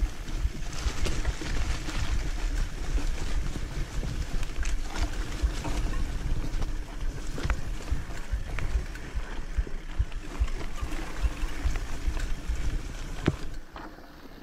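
Off-road trail motorcycle running along a rough dirt track, with wind buffeting the microphone and sharp knocks from the bumpy ground. It goes quieter near the end.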